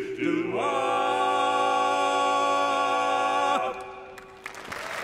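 Barbershop quartet of four male voices singing a cappella, sliding up into a held closing chord that rings for about three seconds and then cuts off. Applause starts just before the end.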